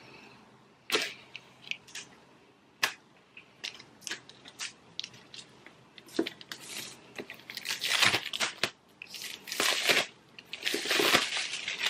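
Clear plastic shrink-wrap being peeled off a cardboard laptop box and crinkling in the hands. There are a few sharp snaps of the film in the first seconds, then longer rustling bursts from about six seconds in and again near the end.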